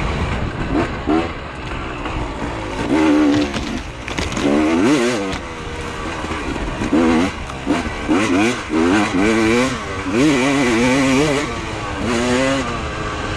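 Dirt bike engine revving up and down over and over as the rider works the throttle climbing a rough trail, its pitch rising and falling every second or so, with knocks from the bike over the ground.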